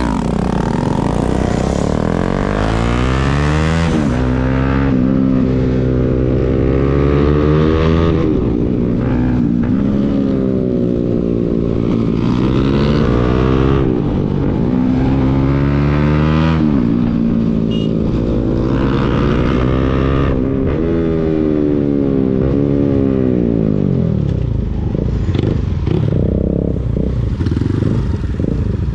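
Motorcycle fitted with an aftermarket Akrapovic full-system exhaust, engine pitch climbing and dropping over and over, about once every four seconds, as the throttle is opened and eased off.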